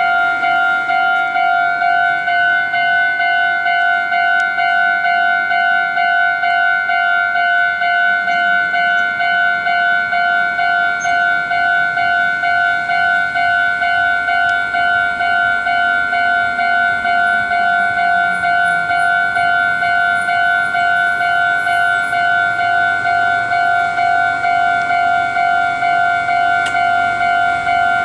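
Japanese railway level-crossing alarm ringing a steady, rapid electronic ding-ding, about two strikes a second: the crossing is closed for an approaching train.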